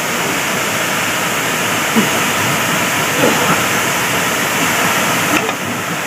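A tall waterfall pouring into a rock plunge pool: a steady rush of falling water.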